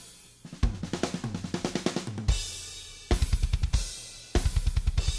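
Unmixed metal drum multitracks playing back: acoustic kit with natural kick and snare reinforced by layered kick and snare samples, plus overhead mics. A busy fill with cymbal crashes is followed by very fast, even double-kick runs under the cymbals.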